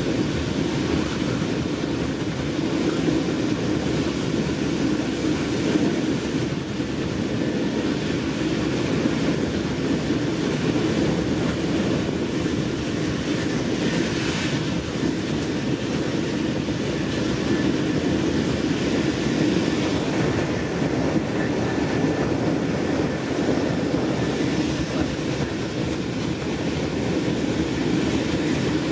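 Steady running noise of a German n-Wagen (Silberling) passenger coach at speed, with wheels rolling on the rails, in a regional train hauled by a Class 185 electric locomotive.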